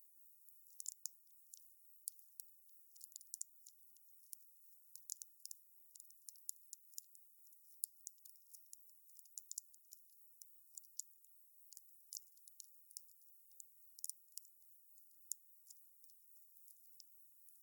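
Wood fire crackling: irregular sharp pops and snaps of burning firewood, several a second, with no low roar of flame underneath.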